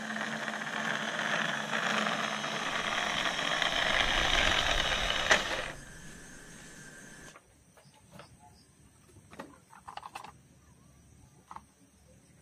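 Small electric motor and gears of a battery-powered toy car whirring steadily as it drives. The whirr drops about six seconds in and stops a moment later, followed by faint clicks and knocks of plastic toy cars being handled.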